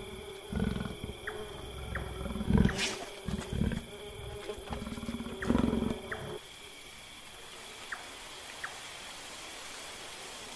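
Leopards growling low in short, repeated rumbles over the steady buzz of a bee. About six seconds in the growls stop, leaving a quieter background with a few faint clicks.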